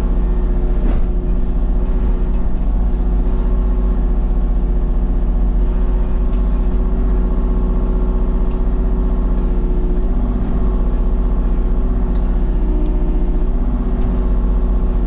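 Engine of a compact digging machine running steadily, loud and even with a heavy low rumble.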